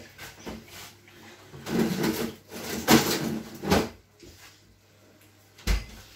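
Freezer drawer being pulled open, rummaged in and shut: a run of clicks, knocks and rattles, ending in a heavy thump near the end as it closes.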